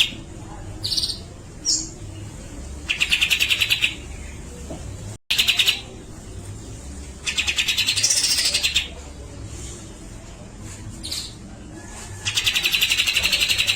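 Grey-cheeked bulbul (cucak jenggot) giving rapid, buzzy rattling phrases about a second or so long, four times, with short single whistled notes in the gaps between them.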